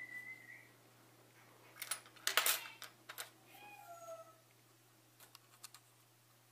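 Small parts of a Canon EF 50mm f/1.8 II lens clicking and tapping as its locking mechanism is fitted back into the barrel, with a sharp cluster of clicks about two seconds in and a few lighter ticks near the end. Faint short high-pitched calls sound twice in the background.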